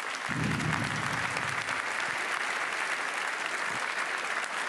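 Audience in a large hall applauding steadily, with a brief low murmur of voices under the clapping in the first second or two.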